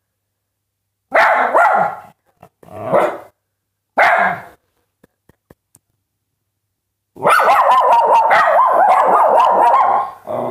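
Small dogs barking: three short barks in the first few seconds, then after a pause a longer unbroken run of barking lasting about three seconds.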